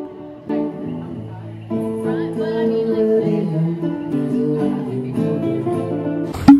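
Music led by acoustic guitar, with steady sustained notes. A sudden loud thump near the end.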